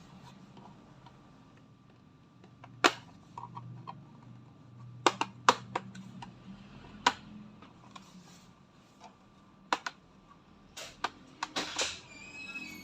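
Plastic snap clips of an ASUS A509FA laptop's bottom cover popping loose as the panel is pried open by fingernail: a series of sharp, irregularly spaced clicks.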